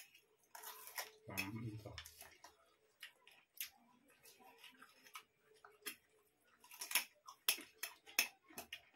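Eating by hand from steel plates: scattered small clicks, taps and mouth smacks of fingers working rice and curry and people chewing, with a brief voice sound about a second and a half in.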